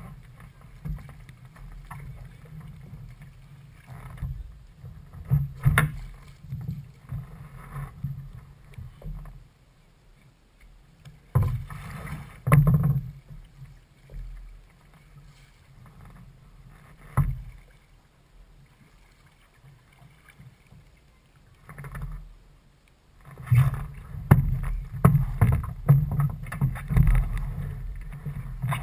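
Sea kayak on the water: paddle splashes and water sloshing against the hull in irregular bursts, with a quieter spell in the middle and busier splashing near the end.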